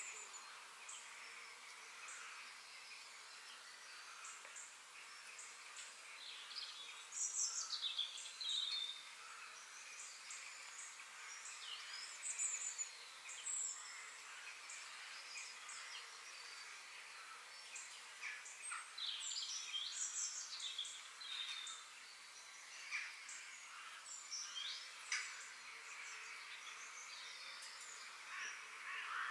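Several small forest songbirds singing and chirping in short, overlapping phrases over a faint steady outdoor hiss. The loudest phrases come about seven seconds in and again around twenty seconds in.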